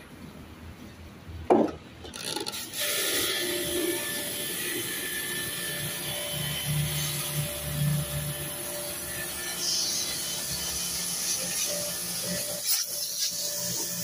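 Pressure washer jet spraying water onto a window-type air conditioner's metal casing and coils: a steady hiss of spray that starts about three seconds in, after a single sharp knock, and breaks off briefly near the end.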